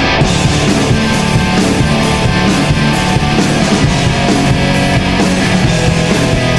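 Background rock music with distorted electric guitars and a steady beat.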